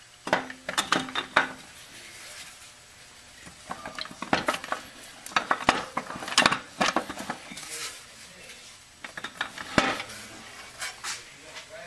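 Steel transmission parts clinking and rattling against each other and the aluminium case in several bursts as the output carrier of a Ford 6R80 automatic transmission is worked down into the case by hand and seated.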